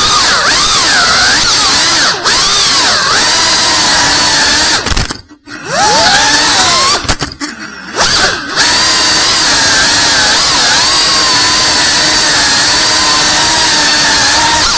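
Cinewhoop FPV quadcopter's small brushless motors and propellers whining, the pitch rising and falling with the throttle. The sound drops away sharply twice near the middle, then picks up again.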